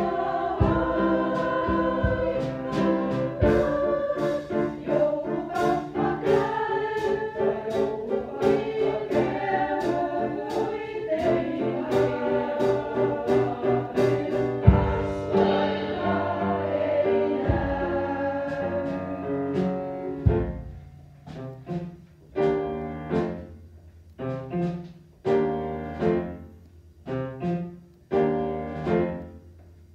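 Choir singing with piano accompaniment. About two-thirds of the way through, the sound thins out to separate, ringing piano chords that fade between strikes about once a second.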